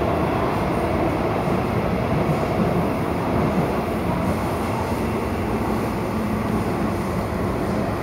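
MTR Tung Chung Line A-train running, heard from inside the car: a steady rumble of wheels and running gear on the track.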